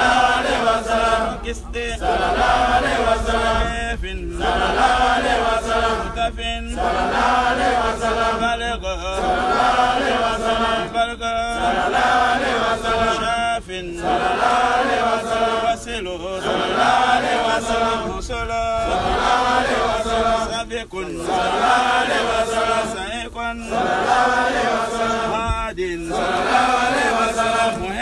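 Male voices chanting a litany of Islamic sacred names from a book, in sung phrases of about two and a half seconds, each followed by a brief breath pause.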